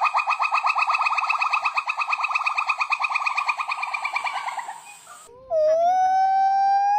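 Monkey calls: a fast trilling chatter of about ten pulses a second that fades out around five seconds in, then, after a short gap, one long whistled call that rises in pitch at its end.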